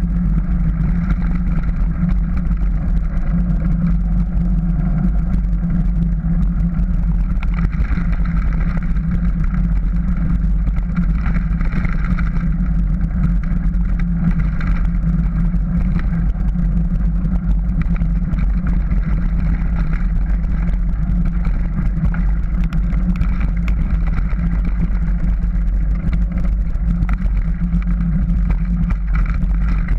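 Steady rush of wind buffeting a bike-mounted action camera's microphone, with bicycle tyres rumbling and crunching over loose gravel, unbroken and loud.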